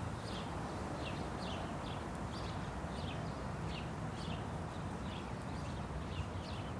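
Paint roller being worked back and forth over the door's smooth face, a faint sticky rasp with each stroke, repeating about every half to two-thirds of a second.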